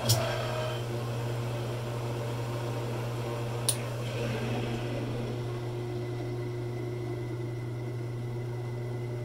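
Wood lathe motor starting up and running steadily, spinning a chuck holding an acrylic pen blank, with a steady hum throughout. A single sharp click about three and a half seconds in.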